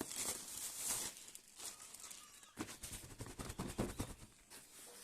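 Packaging being handled during an unboxing: irregular rustling with scattered clicks and knocks, a burst of crinkling in the first second.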